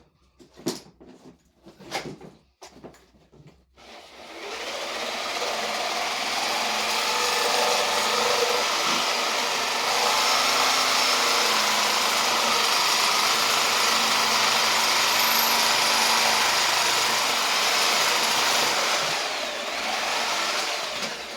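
A few short knocks and clicks, then a reciprocating saw (Sawzall) starts about four seconds in and runs steadily, shaving wood into a carved shape. It eases off briefly near the end.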